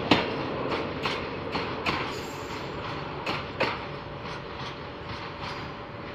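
Container freight train's wagons rolling past, wheels clacking over the rail joints about two to three times a second over a steady rumble, growing quieter as the train draws away. A faint steady whine joins in during the second half.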